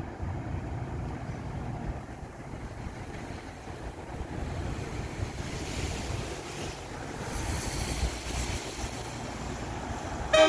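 Wind buffeting the microphone, with a low uneven rumble and hiss that swells for a few seconds in the middle. Right at the end, an approaching train's horn starts to sound loudly, several notes together as a chord.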